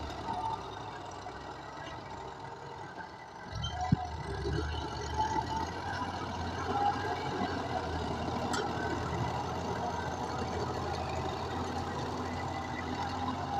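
Tractor engine running steadily, quieter for the first few seconds and then louder from about three and a half seconds in. A single sharp knock comes just after that.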